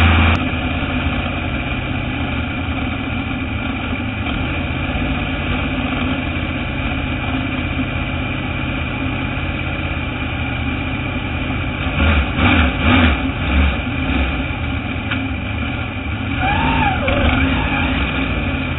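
Dirt modified race car's V8 engine dropping from high revs to a steady idle right at the start, heard from inside the car, with a few quick throttle blips about twelve seconds in.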